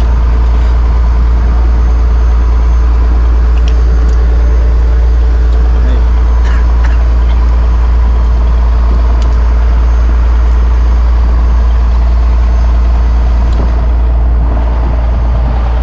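Fishing boat's engine running steadily, a loud, unbroken low drone.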